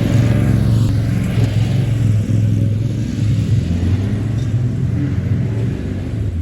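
An engine running steadily with a low rumble that wavers slightly in pitch and load.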